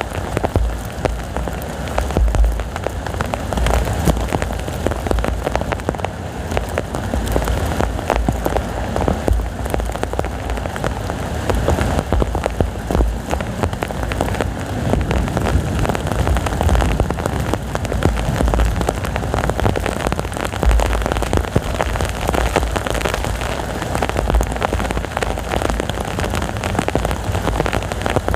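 Heavy rain pouring steadily, a dense patter of drops, with an uneven low rumble from strong gusting wind.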